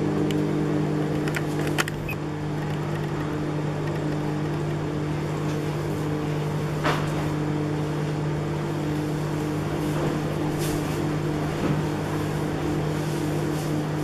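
LG microwave oven running with a steady electrical hum, with a few light ticks now and then.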